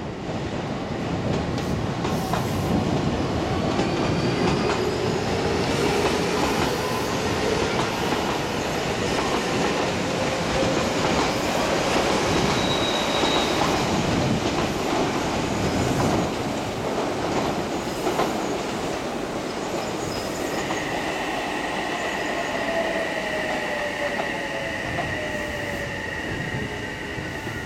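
Odakyu 3000 series electric commuter train running through the station. Its wheels clatter over the rail joints, and a motor whine rises in pitch over the first several seconds as the train gathers speed. A steady high tone sets in about twenty seconds in.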